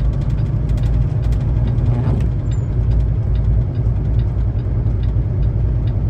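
Semi-truck's diesel engine running steadily in a low gear, heard from inside the cab as a loud, even low rumble. Over it comes light, regular clicking, a few times a second, from snow chains on the drive tires.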